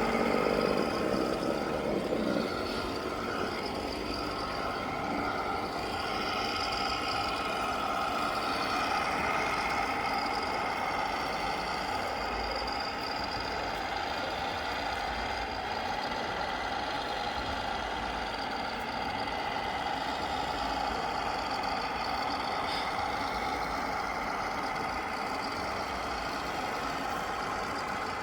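Radio-controlled scale model trucks running, giving out steady truck-engine idling sounds with a whirring undertone. It is a little louder in the first couple of seconds.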